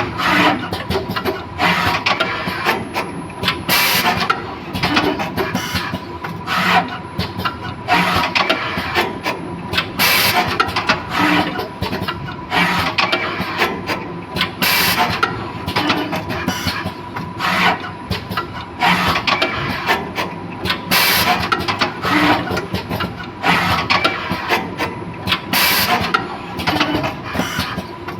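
Automatic wire soldering machine running through its feed, cut, strip and solder cycles: continuous mechanical clatter and rubbing, with a louder burst about every five seconds over a steady high-pitched tone.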